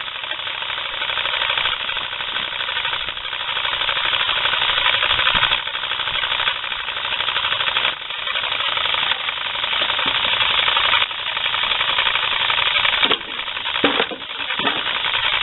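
Small model steam engine running fast: a loud, rapid, steady chuffing clatter mixed with hissing steam, dipping sharply in level a few times.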